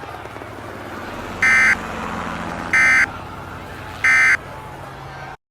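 Three short EAS end-of-message data bursts (the SAME "NNNN" code), sent about a second and a half apart over a steady hiss. They signal the end of the emergency alert. The sound cuts off abruptly near the end.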